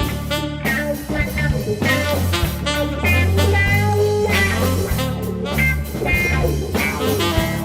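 Background music: guitar-led blues-rock with a steady bass line and plucked guitar notes.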